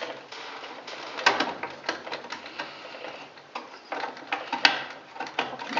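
Irregular clicks and knocks of small parts being handled as a furnace humidifier's float valve is worked out of its housing with its gasket.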